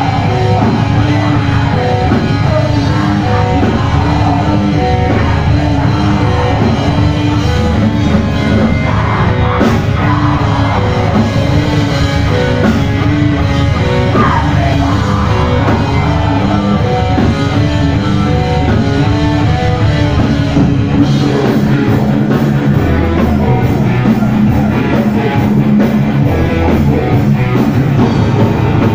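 Live heavy metal band playing loud: electric guitars, drum kit and a singer on the microphone. The riff changes about three-quarters of the way through.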